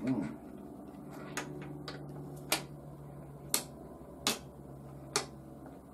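Sharp clicks and knocks, five of them spread a second or so apart, as the parts of a wet brass tumbler's drum and lid are handled and tried together, over a steady low hum.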